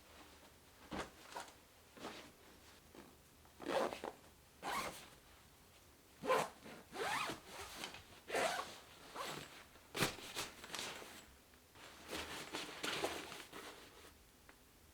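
Zippers being pulled open and shut on bags being packed: a string of separate zips, some quick and some drawn out, with small rustles and clicks between them.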